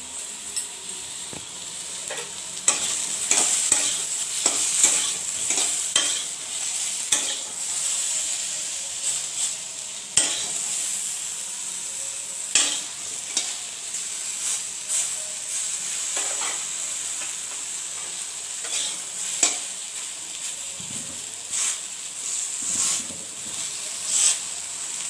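Eggplant (brinjal) pieces frying in hot oil with a steady sizzle. A spatula clicks and scrapes against the pan many times as the pieces are stirred and turned.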